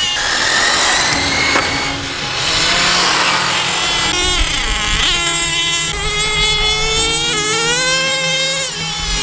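Radio-controlled race cars' motors revving as the cars speed around the track, the whine sweeping up and dropping back in pitch again and again.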